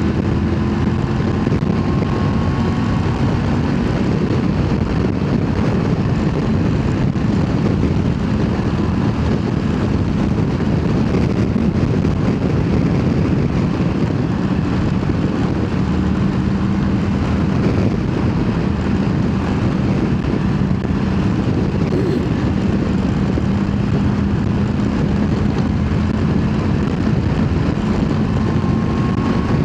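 Motorcycle engine running steadily at cruising speed, its drone drifting slightly and rising a little near the end, under a constant rush of wind and road noise.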